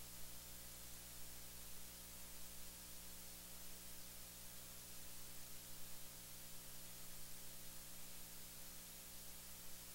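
Steady hiss with a low electrical hum running under it: the noise floor of the audio chain, with no speech audible.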